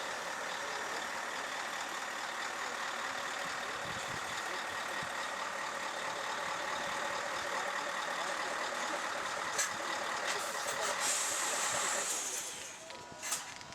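Heavy low-loader truck running steadily. Near the end there is a short burst of hissing air, then the engine noise drops away, with one sharp click just after.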